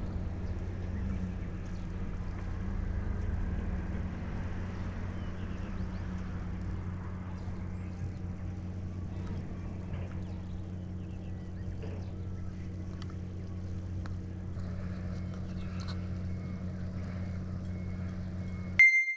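A steady low engine hum running evenly throughout. Near the very end it cuts off abruptly and a bright chime sounds.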